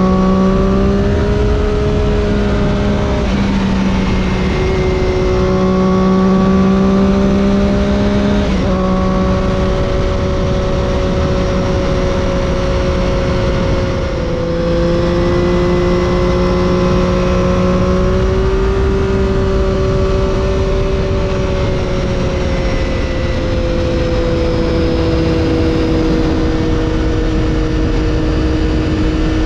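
Triumph Daytona 675's inline three-cylinder engine through an Arrow exhaust, heard from on the bike at moderate revs with wind and road noise. The engine note rises and falls gently, with sudden pitch steps at about three seconds, eight seconds and fourteen seconds in, typical of gear changes.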